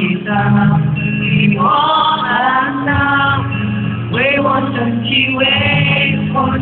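Male pop singer singing live into a microphone over backing music, with long held notes.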